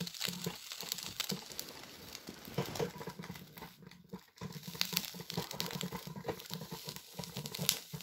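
Russell Hobbs electric filter coffee maker's hot plate keeping a glass carafe of fresh coffee warm, with a run of irregular crackles and ticks.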